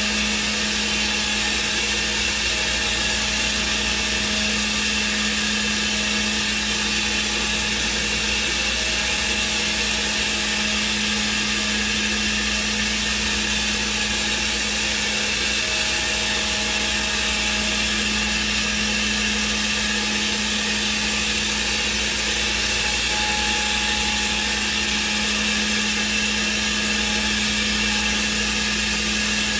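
Thermwood CNC router running while it machines a wooden part: a steady hum and hiss from the spindle and machine, with faint brief whines now and then as the head moves.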